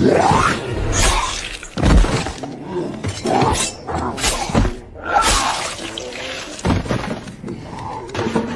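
A run of crashes with shattering and breaking, about seven sudden loud impacts over several seconds, with music underneath.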